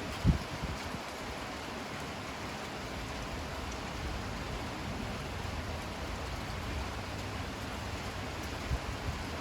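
Steady rain falling, an even hiss with a low rumble beneath it. A single brief low thump sounds right at the start.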